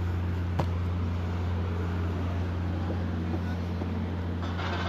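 A steady, low engine hum, with one sharp click about half a second in and a rise of hiss near the end.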